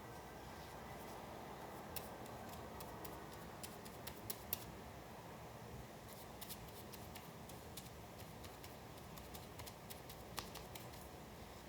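Quiet paper handling during hand collage work: a faint rustle with scattered light, sharp clicks and ticks that come in small clusters, the loudest about four and a half seconds in.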